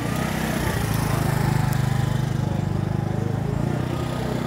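A motor-vehicle engine running close by with a steady low pulsing note, loudest about a second and a half in and then easing off a little.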